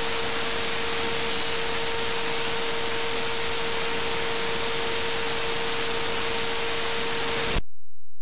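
Software-defined radio in wideband FM mode putting out steady static hiss with a steady mid-pitched tone through it instead of the station's audio: the no-sound fault on local FM stations. The hiss cuts off suddenly near the end, leaving a few thin steady tones.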